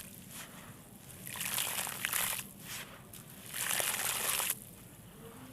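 Small dry blocks of red sandy clay crumbling, in two gritty bursts of fine crackles about a second long each, starting about one and a half seconds in and again near three and a half seconds.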